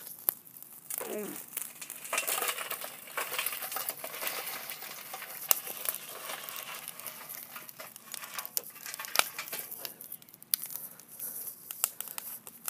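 Lit charcoal being tipped out of a Weber chimney starter into a Lodge cast-iron hibachi grill: coals tumbling and clinking with a crackling rustle, with a few sharp knocks on the metal.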